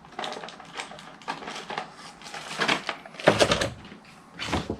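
Irregular plastic clicks and rustling from a plastic action figure and its accessories being handled, with a heavier knock a little past three seconds in.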